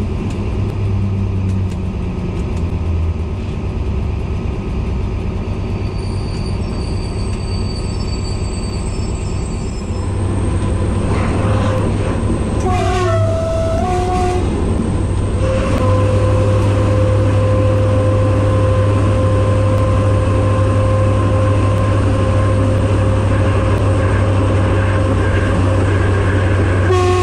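Diesel engine of a BB 67400 locomotive running under power, heard from inside the cab. It grows louder about ten seconds in and again a few seconds later as the train gathers speed. About halfway through the horn gives a two-second blast, and another blast starts right at the end.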